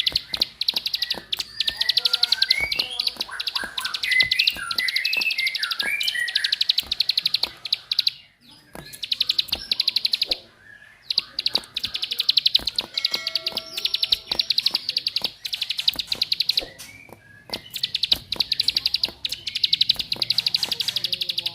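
Ciblek (prinia) giving its fast, high 'klik-klik' clicking call in long runs, broken by short pauses about 8, 10 and 16 seconds in. A twittering song phrase sits under the clicking early on.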